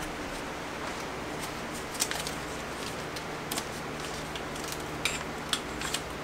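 Duct tape being pulled off the roll in a few short, sharp rips and wrapped around a foam-insulated refrigerant line set, over a faint steady hum.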